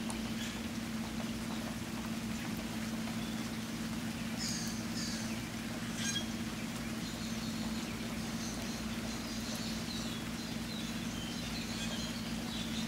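Steady rainfall, with a few short high bird chirps about four seconds in and again through the second half, over a steady low hum.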